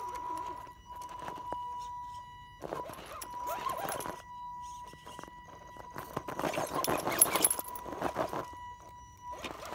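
RC rock crawler's electric motor and drivetrain whining steadily at crawling throttle, with short breaks. The tyres scrabble and grit clatters on rock twice, around three seconds in and again, louder and longer, from about six seconds.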